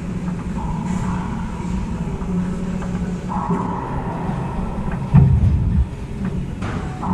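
Steady low hum in an enclosed racquetball court, with a few faint sharp knocks of the racquetball and a dull low thump about five seconds in.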